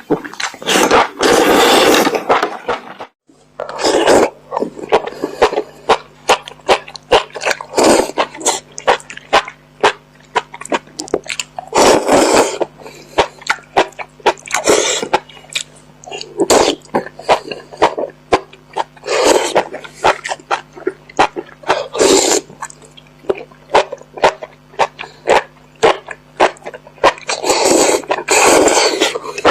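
Close-miked eating of spicy enoki mushrooms: many wet mouth clicks and chewing sounds, broken every few seconds by louder slurps, each under a second long. A faint steady low hum sets in about three seconds in.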